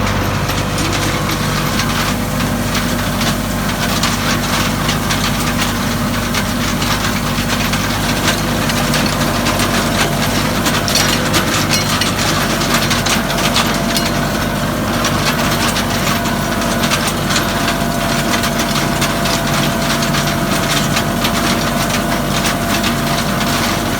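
Tractor engine running steadily in a hay field, with a dense, constant clatter from the hay implement it is working.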